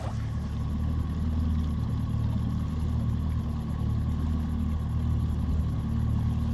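Bass boat's outboard engine running, a steady low drone with no change in speed.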